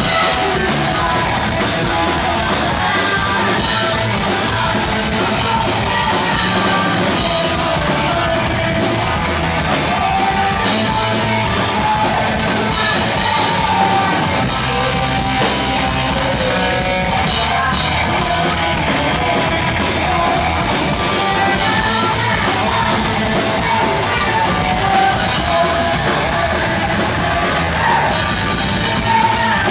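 Heavy metal band playing live at a steady, loud level, with a singer's vocals over the band.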